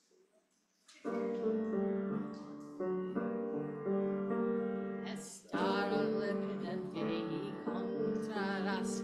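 Piano begins playing a song introduction about a second in, after near silence; a woman's singing voice comes in over the piano in the second half.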